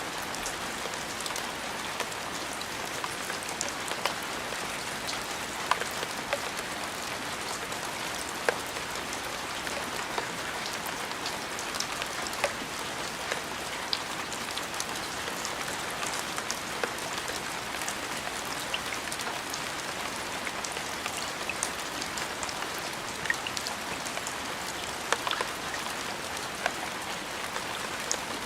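Steady rain, with many individual drops landing as sharp little ticks over an even hiss.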